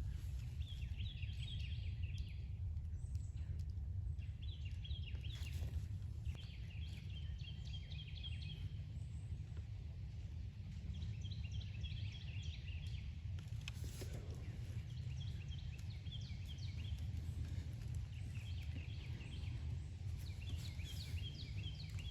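A songbird singing short phrases of quickly repeated high notes, about seven phrases a few seconds apart, over a steady low rumble.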